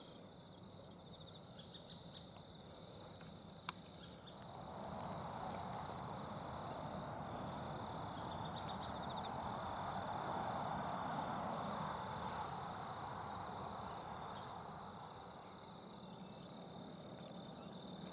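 Outdoor insect and bird ambience: a steady high insect drone under short, high chirps repeating about twice a second. A broad rushing noise swells up about four seconds in and fades again near the end, with a single sharp click just before it.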